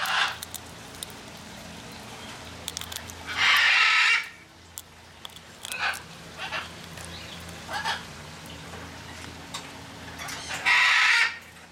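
Catalina macaw (scarlet × blue-and-gold hybrid) giving two loud, harsh squawks, each under a second long, about seven seconds apart, with a few shorter, quieter sounds between.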